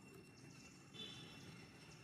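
Faint outdoor background with one brief, high-pitched animal squeak about a second in.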